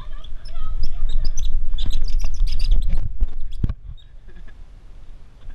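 Loud low rumble on the microphone, with a quick run of short, high chirps and squeaks from about a second and a half in. Both fade to a quieter background near the end.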